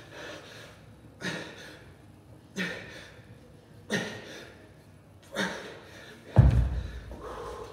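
A man breathing out hard in time with one-arm kettlebell presses: four sharp breaths, about one every second and a half. Near the end a heavy kettlebell is set down on the gym floor with a loud thud, the loudest sound.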